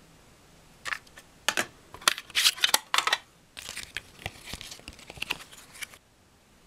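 Folded paper cassette inlay (J-card) being handled and opened out: crisp crinkling and a few sharp snaps for about two seconds, then softer paper rustling that cuts off abruptly near the end.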